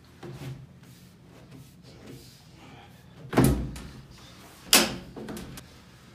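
Two sharp knocks about a second and a half apart, the first with a heavier low thump, as a lightweight secondary window insert's frame is set into a window frame, with fainter handling noises before them.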